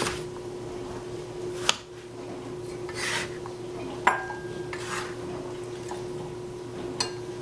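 Cleaver knocks on a plastic cutting board as eggplant is chopped, then the chunks are gathered off the board with rustling and dropped into a ceramic bowl, with a sharp clink and a brief ring about four seconds in. A steady low hum sits underneath.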